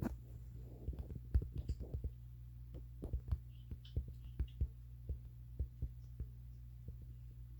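Irregular light clicks of typing on a phone's touchscreen keyboard, several a second, over a steady low hum.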